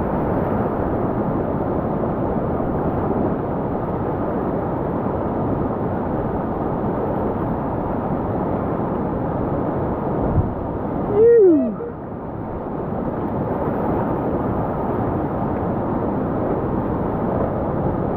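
Whitewater river rapid at high flow (about 5000 cubic feet per second), a steady rushing of water. About 11 seconds in, a short shout that falls in pitch rises over it.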